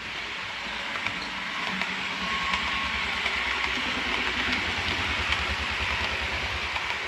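Hornby model Class 370 APT train running past on model railway track: a steady whirr and rumble of wheels on rail that grows louder as the coaches go by, with a fast low pulsing and a few faint clicks.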